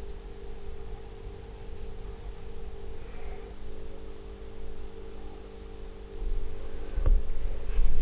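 Steady low electrical hum at several pitches over a low rumble, with a few dull thuds near the end.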